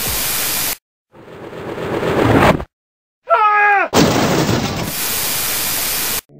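Cartoon sound effects: a blast of loud static-like noise, a rising rush of noise, a short falling pitched swoop, then another long blast of static-like noise, with sudden cuts to silence in between.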